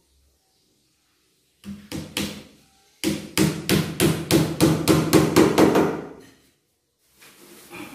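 Hammer nailing a wooden board onto a wooden frame. Three separate taps come first, then about a second later a quick even run of about a dozen strikes, roughly four a second, and a few softer knocks near the end.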